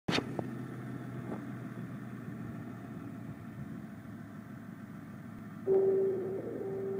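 School bus engine idling with a steady low rumble. Near the end a loud, steady high-pitched tone starts abruptly and holds.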